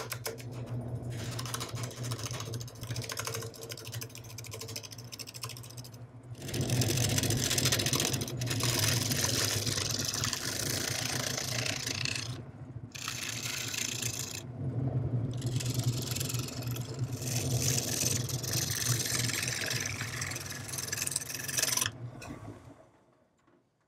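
Wood lathe running with a steady motor hum while a gouge cuts into a spinning almond tree root ball, giving a loud, rough cutting noise in stretches with two short breaks as the tool comes off the wood. The sound fades away near the end.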